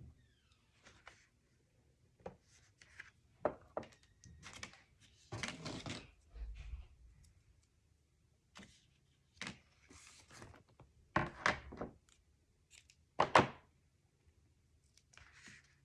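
Paper and small craft pieces handled on a work table: scattered taps and knocks, a few sharper ones, mixed with short rustles of paper.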